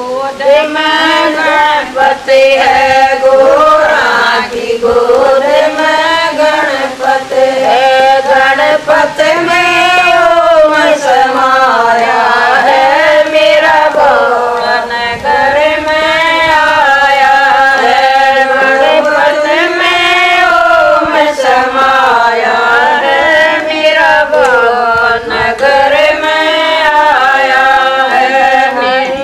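Women singing a Haryanvi Shiva bhajan together, a chant-like melody that rises and falls in long phrases with no instruments.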